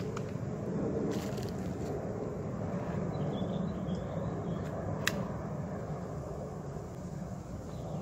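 Sharp clicks from a .177 PCP air rifle on a shooting rest, one at the very start and a louder one about five seconds in, over steady outdoor background noise.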